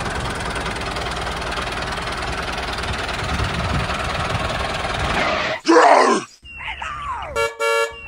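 Tractor engine sound running steadily for about five and a half seconds, then a short loud burst and a brief horn toot near the end.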